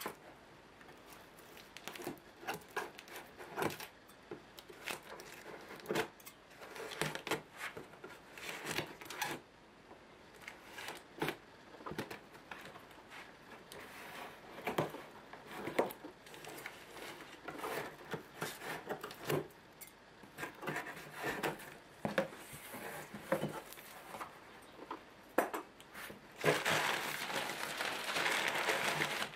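Packing tape being pulled and torn off a cardboard box, a run of short, irregular ripping and scraping sounds. Near the end the flap comes open and the crumpled paper packing inside rustles steadily.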